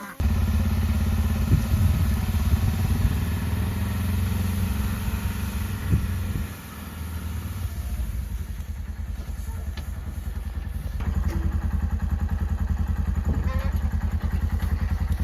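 A farm vehicle's engine running with a steady low putter, dropping in level about six and a half seconds in and then carrying on evenly.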